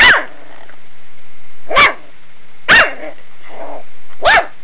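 Beagle puppy barking: four short, sharp barks spaced a second or two apart, each rising and falling in pitch, with a softer one between the last two.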